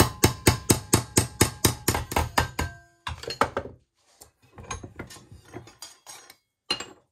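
Hammer blows on a stainless steel sheet clamped in a bench vise, folding it over into a 90-degree bend. A fast run of ringing metallic strikes, about six a second, lasts nearly three seconds. Softer, scattered knocks follow, with one sharper strike near the end.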